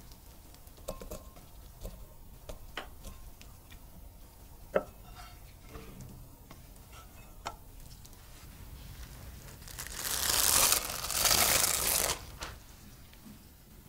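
A spatula scraping and tapping a non-stick frying pan as scrambled egg pieces slide into a glass bowl: scattered light clicks with one sharper tap midway. About ten seconds in, plastic cling wrap crinkles loudly in two bursts.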